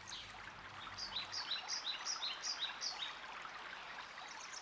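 Birdsong over running water. A bird repeats a short falling note about three times a second for a couple of seconds, and a quicker trill begins near the end.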